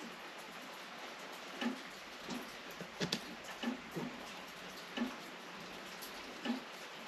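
Irregular light clicks and knocks from hand work on a window lock mechanism, about seven over several seconds, unevenly spaced.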